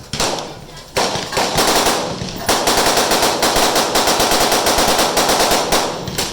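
Gunfire: a single shot about a second in, then a long string of very rapid shots, around nine a second, lasting over three seconds, far too fast for a lever-action rifle.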